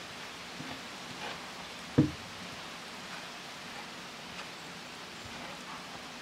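Hands rubbing and tossing egg and flour crumbs in a wooden bowl: soft rustling, with one sharp, deep thump about two seconds in, over a steady outdoor hiss.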